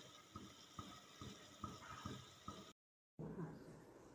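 Rasgullas boiling in sugar syrup in a metal pan: faint, soft bubbling with small irregular pops, broken off by a moment of total silence about three seconds in.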